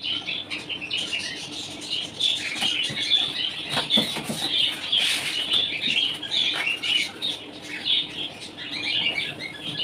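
Many small birds chirping and chattering without pause, over the rustle and scattered knocks of a cardboard box being opened and a paper packing sheet lifted out. A steady low hum runs underneath.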